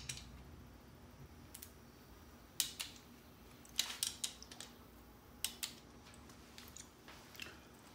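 A handful of faint, sharp metallic clicks a second or two apart, some in quick pairs, from a torque wrench and hand tools as the intake manifold bolts are re-checked for torque.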